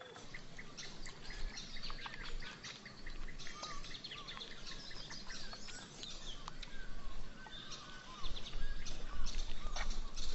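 Wild birds chirping and calling in dense short notes throughout. A louder low rumbling noise joins about eight seconds in.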